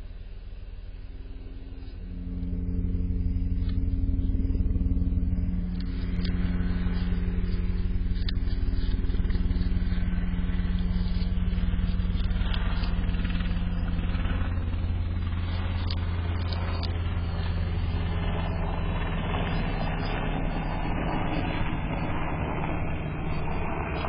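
A steady motor or engine drone grows louder about two seconds in and holds, the loudest sound throughout. Over it, a groundhog crunches and chews a whole apple in irregular bites.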